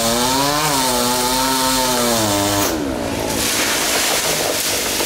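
Two-stroke chainsaw running at high revs with its pitch wavering, then dropping about two and a half seconds in as the chain bites into the wood, followed by the rough, steady sound of the saw cutting.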